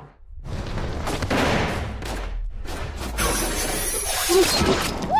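Action-film sound effects: a noisy rush with a deep rumble underneath, then a brighter, hissing and crackling wash from about three seconds in.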